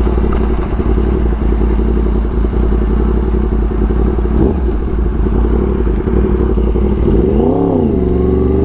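2016 Yamaha R1's crossplane inline-four, fitted with a full Arrow exhaust, running steadily while riding. About seven and a half seconds in, the revs rise and fall quickly once.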